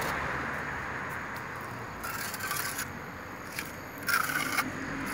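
A sponge float rubbing over freshly applied fine lime plaster (cal fino) on a masonry pillar, in two short bouts of scraping: about two seconds in and again near the end.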